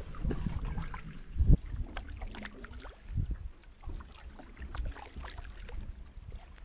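Paddling an aluminum canoe: paddle strokes and small splashes in the water, with low wind rumble on the microphone. There is one sharp knock about a second and a half in.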